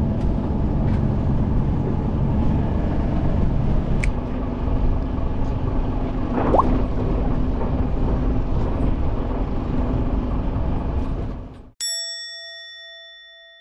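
Steady low rumble of the fishing boat at sea. Near the end it cuts off abruptly, and a single bell-like ding sound effect rings out and fades away.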